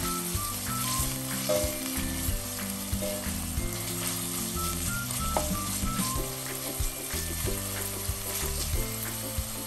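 Diced pancetta and soffritto sizzling in oil in a stainless steel pot, stirred now and then with a wooden spoon that scrapes the bottom, under background music.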